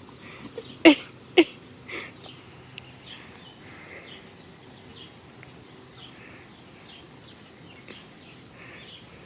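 Two short, loud animal calls in quick succession about a second in, over faint birds chirping again and again in the background.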